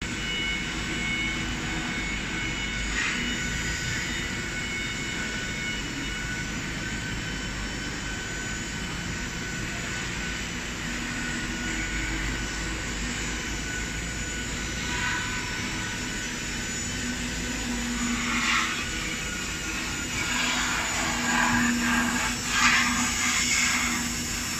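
4-axis rotary CNC router running, its spindle giving a steady high whine while the bit mills a foam block, with several louder swells of cutting noise that grow strongest near the end.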